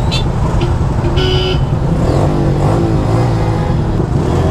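Motorcycle engines idling in stopped traffic, with a steady low hum, and a short vehicle horn beep about a second in.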